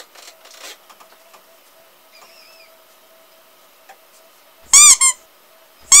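Two pairs of loud, high-pitched squeaks, each rising and then falling in pitch, about five and six seconds in, with faint rustling before them.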